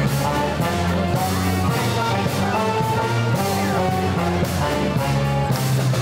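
Street band playing live: trombone and other brass over a moving bass line and a steady beat.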